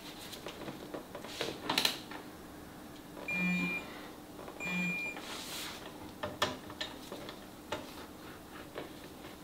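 Torque wrench on a motorcycle swing arm pivot shaft: light clicks and knocks of the tool, then two short high electronic beeps, each with a low buzz, about three and a half and five seconds in. The beeps signal that the set torque of 50 foot-pounds has been reached.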